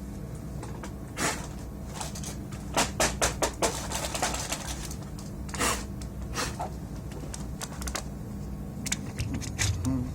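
Scattered clicks and taps of hard plastic and metal parts of a PS4 console being handled, with a quick run of clicks about three seconds in and a few more near the end, over a steady low hum.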